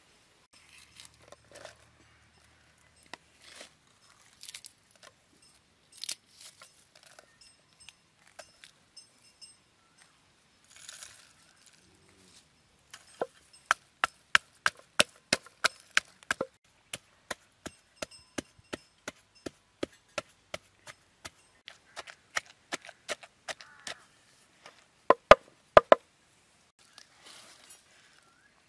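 Wooden pestle pounding chillies and garlic in a wooden mortar: a steady run of sharp knocks about two a second that starts about halfway through, after scattered soft taps. A few louder knocks come near the end.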